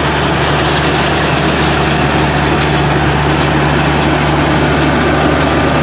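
Engine of a homemade Vietnamese rice combine harvester running steadily, a constant low drone with no change in speed.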